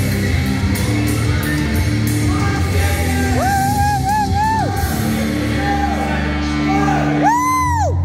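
Rock music with singing, playing loudly. A high vocal note wavers from about three and a half seconds in, and a short, high, rising-and-falling vocal cry comes near the end.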